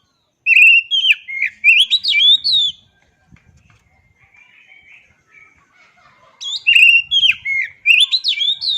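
Oriental magpie-robin singing: two loud bursts of rapid whistled phrases with quick up-and-down sweeps, the first about half a second in and the second about six seconds in, with faint softer notes between them.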